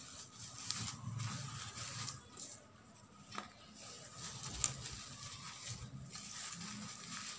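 Dry coconut coir fibres rustling and scratching as they are wound by hand around a rolled newspaper core, with a few light clicks.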